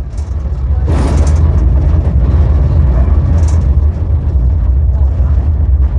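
Loud, steady low rumble of a vehicle or machine in motion. It swells over the first second and then holds, with a brief hissing clatter about a second in.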